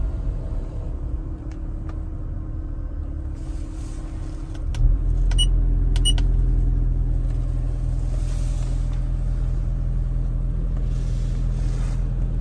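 Cabin rumble of a Toyota Prius in traffic; about five seconds in a steady low hum comes in and the drone gets louder. Around then there is a click and two short touchscreen beeps as the navigation screen is tapped.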